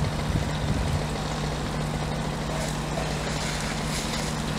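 Fire-service vehicle engine running at steady revs: a constant low hum with a hiss over it.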